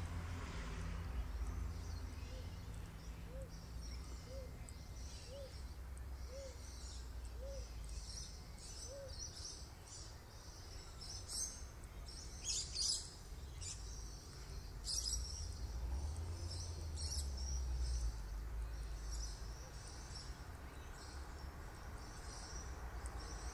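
Birds chirping at dusk: many short high calls, busiest around the middle. Under them, a soft low note repeats about once a second in the first third, over a low steady rumble.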